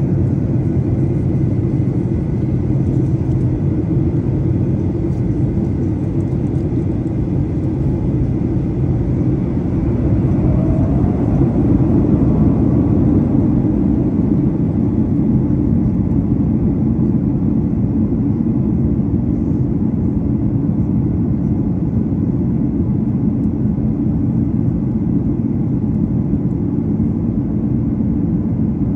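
Jet airliner cabin noise on descent: the steady low rumble of the engines and airflow heard through the cabin, with a faint steady whine above it. A brief rising whine comes in about ten seconds in.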